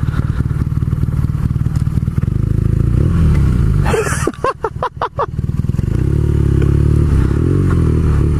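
Motorcycle engine running at low speed on a rough dirt single track, its pitch rising and falling with the throttle, with some clatter. About four to five seconds in, the sound briefly stutters in a few quick dips before the engine settles again.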